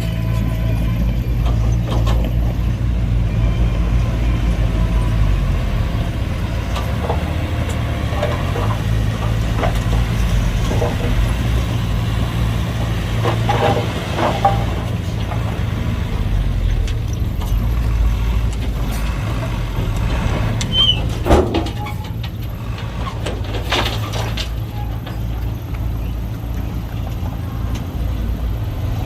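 Heavy diesel machinery running steadily, with a few short metallic clanks and knocks along the way and a brief high squeal about two-thirds through.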